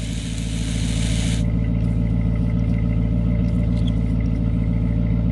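Dodge Magnum's engine idling steadily, with a hissing spray for about the first second and a half as the rear washer nozzle squirts fluid.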